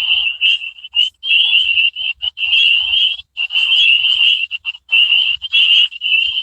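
A high-pitched warbling tone that wavers in pitch and keeps cutting out and resuming at irregular short intervals.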